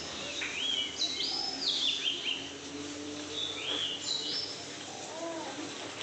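Birds calling: a series of short, quick chirps, most of them in the first four seconds or so, over a steady background hiss.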